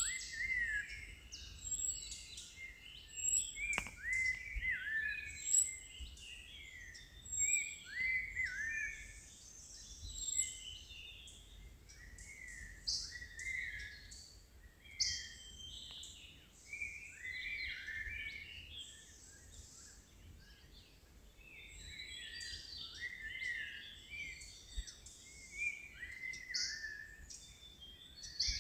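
Many birds calling at once: a continuous chorus of short chirps and whistles, with one bird repeating a short downward-slurred note again and again. A single sharp click sounds about four seconds in.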